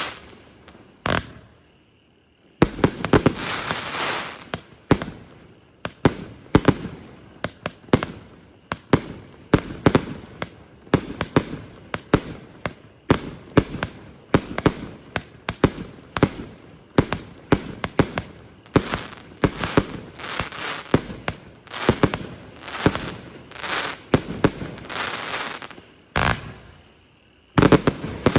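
A 1.2-inch, 100-shot fireworks cake firing. Two shots come at the start, then after a short pause a long rapid run of shots follows, about two a second, each with bursting and crackling. The run breaks off briefly and one last burst comes near the end.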